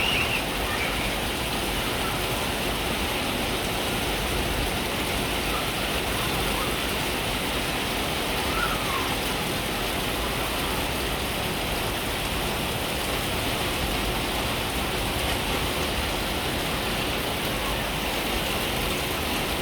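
Rain pouring down steadily, an even hiss with no let-up.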